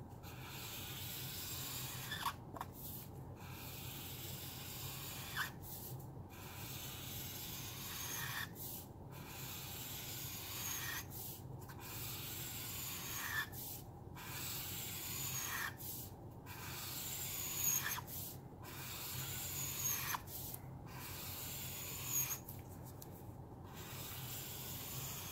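Broad felt tip of a black Caliart alcohol marker drawing long strokes across printer paper: a steady rubbing scratch for a second or two at a time, broken by brief pauses as the tip lifts, about ten strokes, several starting with a short squeak.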